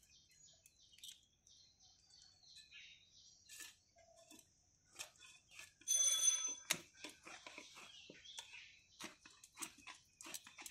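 Bhetki (barramundi) being cut on a large curved blade: scattered clicks and scrapes as the blade works through flesh and bone on a plastic sheet, with faint bird chirps. A brief ringing tone about six seconds in is the loudest sound.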